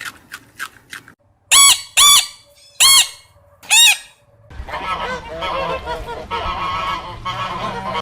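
A farm bird gives four loud calls, each rising and then falling in pitch, about half a second to a second apart. They are followed by a dense chorus of many overlapping calls from a flock.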